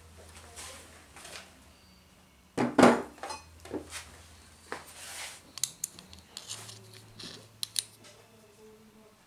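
Small steel tool parts being handled and set down on a wooden workbench: a string of metallic clinks and knocks, loudest about three seconds in.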